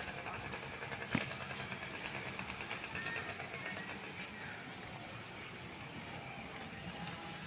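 Street ambience: a vehicle running amid faint voices, with a single sharp knock about a second in.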